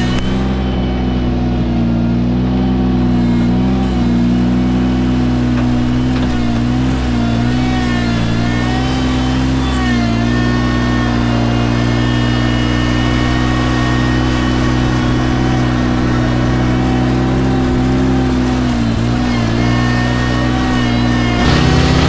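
Ventrac compact tractor's engine running steadily at high throttle, its pitch sagging briefly a few times as it takes load and then recovering.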